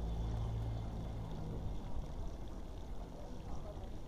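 Outdoor street ambience: a steady low rumble and hiss, with a low hum that fades out after about a second.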